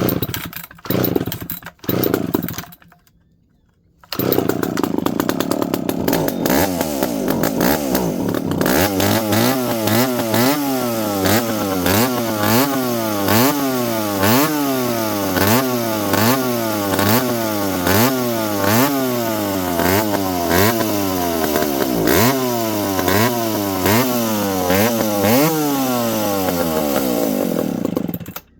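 McCulloch Pro Mac 700 two-stroke chainsaw being pull-started: a couple of cord pulls, then the engine catches about four seconds in and runs. From about eight seconds in, its speed rises and falls over and over, about one and a half times a second, a hunting idle that calls for the idle screw to be turned in; it cuts off suddenly near the end.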